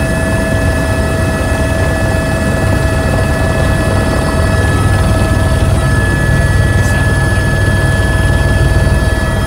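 Airbus H125 helicopter in flight, heard from inside the cabin: the steady drone of its turboshaft engine and rotors, with a constant high whine over a heavy low rumble. It grows a little louder about halfway through.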